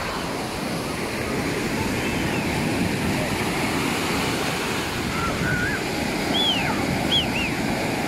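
Small Black Sea waves breaking and washing onto a sandy beach in a steady rush of surf. A few brief high cries rise and fall over it near the end.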